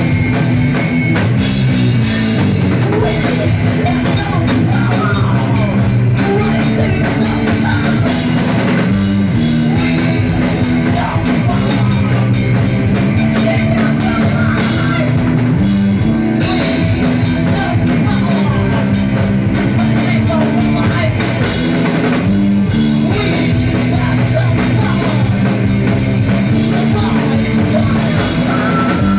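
Loud rock music with a driving drum kit, distorted electric guitar and bass.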